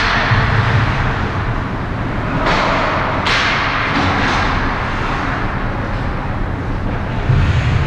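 Steady ice-rink game noise with a low rumble, broken by two hissing scrapes of hockey skate blades on the ice about two and a half and three seconds in.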